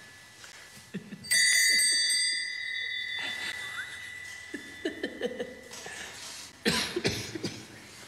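A small altar bell struck once about a second in, its bright ringing fading over about two seconds. Bursts of stifled giggling follow, the loudest near the end.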